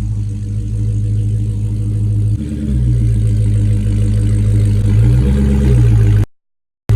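Dodge Charger Hellcat's supercharged 6.2-litre V8 running at low speed with the stock exhaust while the car is pulled up; its note shifts about two and a half seconds in. The sound cuts off abruptly for half a second near the end.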